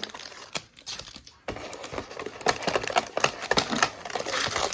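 A trading-card pack wrapper being torn open and handled, with rapid, irregular crinkling and crackling that grows denser and louder about a second and a half in.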